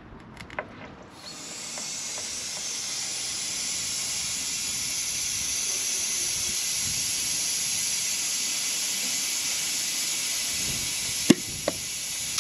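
Compressed air hissing steadily from a trailer air-suspension hose fitting that is not airtight: a leak at the adapter joining 6 mm to 8 mm air line. The hiss starts about a second in and is broken by two sharp clicks near the end.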